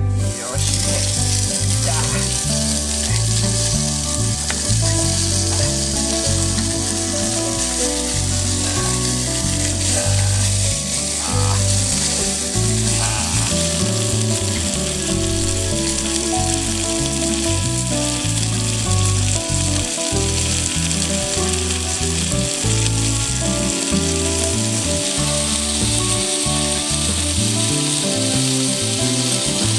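Food frying in a hot pan, a steady loud sizzle that starts suddenly.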